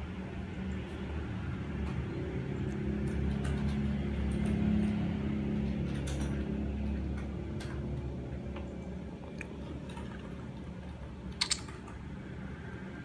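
Small clicks and taps from handling a phone and a handheld camera, over a low steady hum that swells and fades. A sharp double click near the end.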